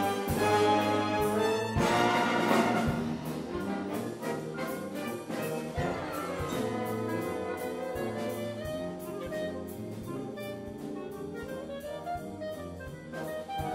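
Wind band playing live in a brassy swing jazz arrangement, trumpets and trombones on top. It opens with loud full-band chords, then drops about three seconds in to a softer passage that carries on over steady sharp beat hits.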